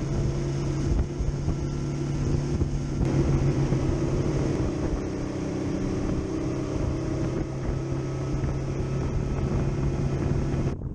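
Suzuki 250 outboard running steadily at cruising speed: an even engine hum under wind buffeting the microphone and the rush of water past the hull.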